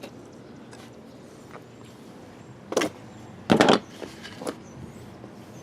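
Two sharp knocks a little under a second apart around the middle, then a fainter tap: something hard being handled or set down.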